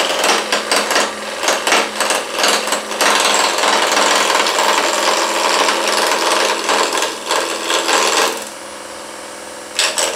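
Wood lathe running over a steady motor hum while a turning tool cuts along the spinning blank. The cut goes as rapid knocking for the first few seconds, then as a continuous rasping, drops away near the end to just the lathe's hum, and briefly resumes. The cut runs along the long grain, which tears the wood fibres.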